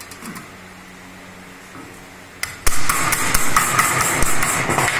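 A plastic-faced mallet striking thin sheet metal held over a holding bar, folding its edge to 90 degrees. A rapid run of light blows with a metallic ring starts about two and a half seconds in.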